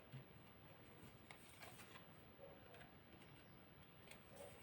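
Near silence, with a few faint, soft clicks of tarot cards being handled.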